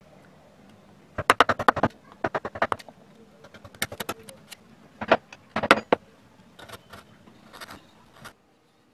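Carving gouge cutting into a wooden relief panel: several bursts of rapid crackling clicks as the blade chips through the wood. The sound fades and stops shortly before the end.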